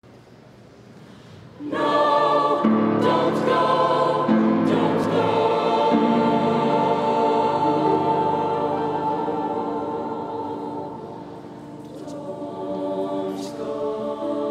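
Mixed choir singing sustained chords, coming in loud about two seconds in, fading away around eleven seconds in, then swelling again.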